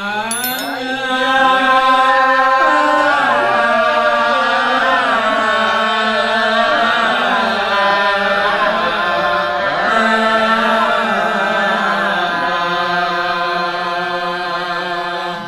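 A man's voice chanting a line of a Malay hikayat in the Sasak nembang style, drawn out into one long, slowly wavering sung phrase of held notes, heard through a microphone.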